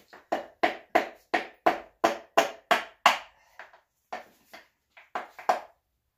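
A run of about ten sharp knocks, evenly spaced at roughly three a second, then a few slower, irregular ones near the end, each with a short ring.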